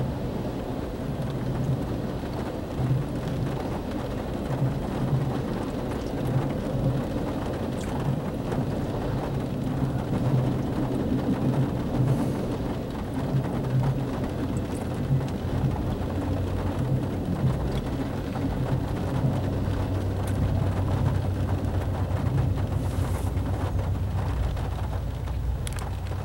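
Norfolk Southern freight train's autorack cars rolling past, their wheels rumbling and clacking on the rails in recurring bursts, over steady heavy rain. A low rumble swells in the last several seconds as the end of the train goes by.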